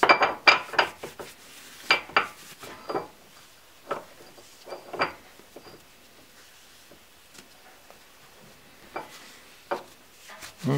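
A hand tool scraping and clinking against the steel cheek of a Minsk motorcycle crankshaft, cleaning baked-on carbon deposits from the flywheel face and its holes. Irregular scrapes and light metallic clinks, pausing for a few seconds past the middle before a few more near the end.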